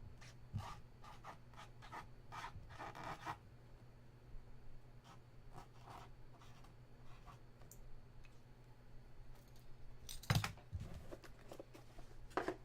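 Faint scratching, rubbing and light clicks of trading cards and their packaging being handled, with a dull knock about ten seconds in, over a low steady electrical hum.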